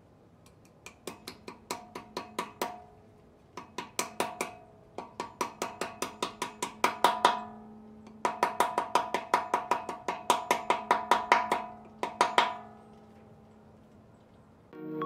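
Small hammer tapping steel dowel pins into the deck of a 5.3 L LS V8 engine block: four bursts of quick, light metallic taps, about six a second, with the block ringing after each tap. Background music starts right at the end.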